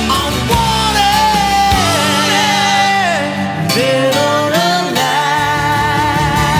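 Rock song with a sung melody line over guitar and band accompaniment.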